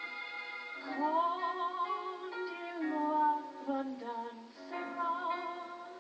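A singer singing into a microphone over instrumental backing, heard through a television's speaker. A held chord opens the passage, and the voice comes in about a second in, singing phrases with vibrato.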